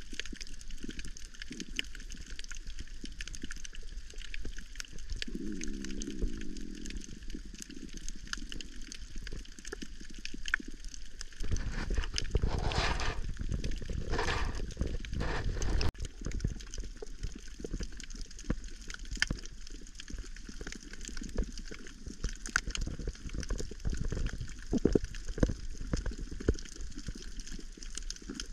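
Water movement recorded underwater on a coral reef: a steady muffled wash with scattered small clicks and crackles, and a louder spell of bubbling gurgles a little before halfway.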